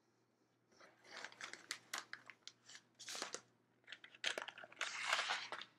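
Crinkling and rustling of a foil anti-static bag full of loose LEDs, mixed with light plastic clicks and knocks as kit parts are picked up and moved off a cutting mat.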